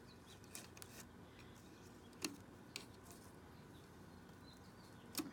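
Faint, scattered clicks and taps of a typewriter ribbon spool and its metal ribbon holder being handled as the new ribbon is fitted on a Royal Custom III typewriter. The sharpest click comes a little past two seconds in, another just before the end.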